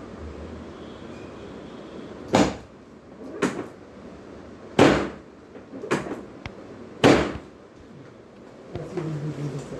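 Five dull thumps about a second apart, from chiropractic adjustment thrusts on a patient lying on a treatment table.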